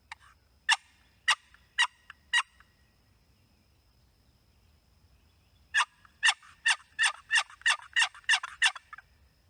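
Turkey yelping: four sharp yelps, then after a pause of about three seconds a faster run of about a dozen, roughly three a second.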